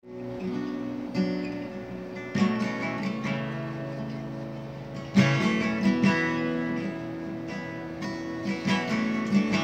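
Acoustic guitar played solo as a song's introduction: chords picked and left to ring, with a new chord struck every second or two, the strongest about five seconds in.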